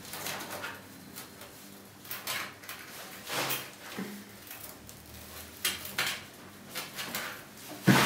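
Computer power-supply cables being pushed and routed inside a PC case: irregular rustles, scrapes and clicks of cable sleeving and plastic, with a sharper knock near the end.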